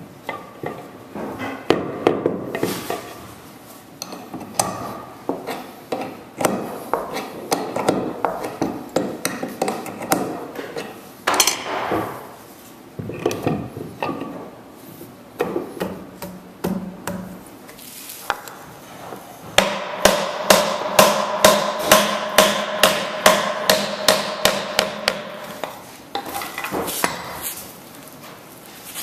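Wooden newel post knocking and bumping against the floor as it is fitted, then a fast, even run of ringing hammer taps, about three a second for six seconds, knocking the post sideways to lock it onto its concealed floor key-lock plate.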